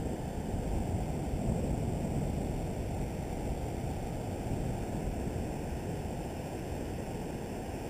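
Steady wind rumbling on the microphone, mixed with the wash of surf breaking on the beach.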